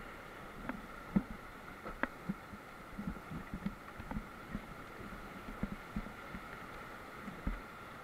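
Dull, irregular thumps and knocks of an inflatable whitewater raft and its paddle riding through rapids, about a dozen over several seconds with the sharpest about a second in, over a faint steady rush of water.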